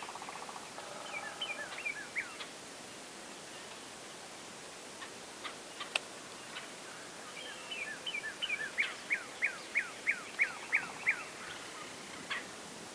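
A small bird singing: a short run of quick downslurred whistles, then near the end a louder series of about eight downslurred notes at roughly three a second, with a few scattered chirps and clicks in between.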